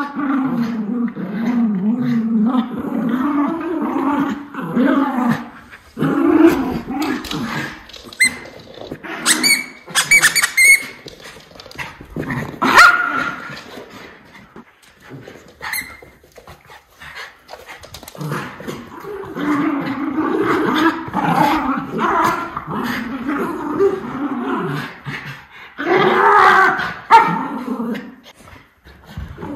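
Miniature schnauzers play-growling during rough play: long wavering growls at the start and again through the second half, loudest near the end, with a few short sharp sounds in between. The growls are vocal play, not aggression.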